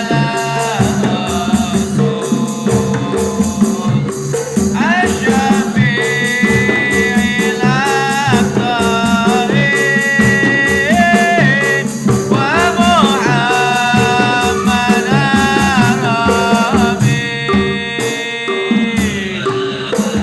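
Devotional sholawat music: a voice sings long, gliding, ornamented phrases over steady rhythmic percussion with a rattle and a held low accompaniment.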